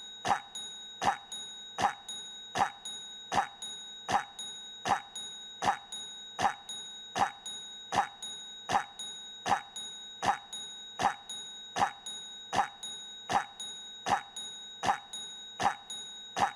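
A short cough sound effect looped over and over at an even beat, about one cough every three-quarters of a second. Each cough is a sharp hit that fades quickly, over a constant high tone.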